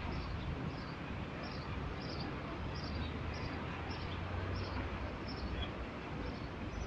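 A small bird chirping over and over at an even pace, about three short high chirps every two seconds, over a steady low rumble of outdoor background noise.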